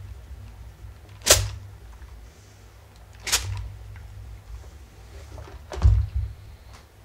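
A clothes iron being worked over fabric on a padded ironing board. Three short, sharp sounds come about two seconds apart, the last with a low thump as the iron is lifted off the board, over a low handling rumble.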